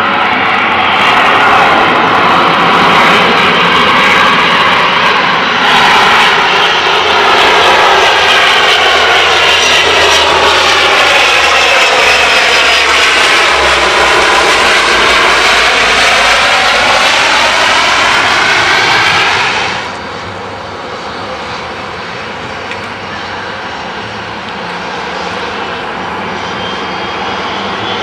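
De Havilland Canada DHC-8-301 (Dash 8-300) turboprop airliner, its Pratt & Whitney Canada PW123 engines and propellers running loud as it lands and rolls past. A phasing sweep falls and then rises as it goes by. About twenty seconds in the sound cuts abruptly to a quieter, duller steady turboprop sound of a Dash 8 on approach.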